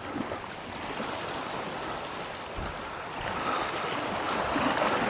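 Sea waves washing against a rocky shore, a steady rush that swells about three seconds in.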